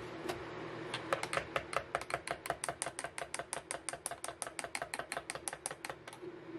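Teaspoon stirring a drink in a ceramic mug, clinking against its sides in a quick, even run of about eight clinks a second that starts about a second in and stops near the end.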